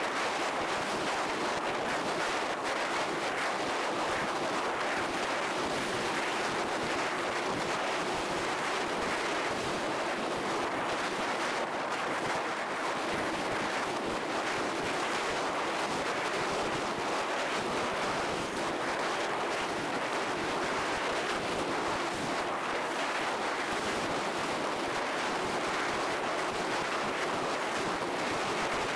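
Steady rush of wind on a microphone mounted on a hang glider in flight, the airflow of forward flight.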